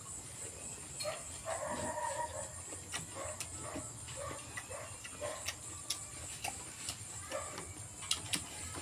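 Close-miked eating sounds: wet chewing and sharp mouth clicks and smacks as raw shrimp marinated in chili and lime is eaten, with a steady high hiss behind.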